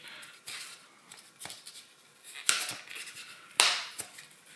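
A pleated cabin air filter being turned and pushed into its plastic holder frame: about four short scrapes and clicks, the loudest two about two and a half and three and a half seconds in.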